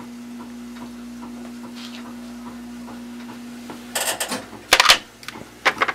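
Brass Ludlow matrices clattering as they are handled and set: several sharp metallic clicks and clacks in the last two seconds, the loudest just before the five-second mark. Under the first four seconds a steady low hum runs and then stops.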